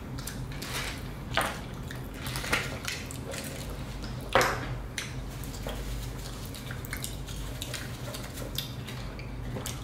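Eating sounds: scattered wet mouth smacks and small clicks of handling food, the loudest about four and a half seconds in, over a steady low hum.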